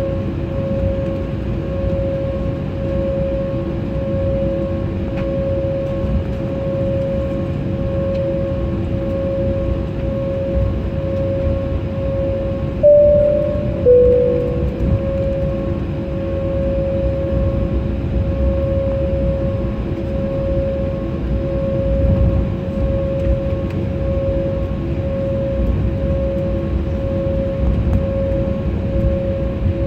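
Jet airliner cabin during taxi: steady engine drone with a pulsing whine. About 13 seconds in, a two-note high-low cabin chime sounds once.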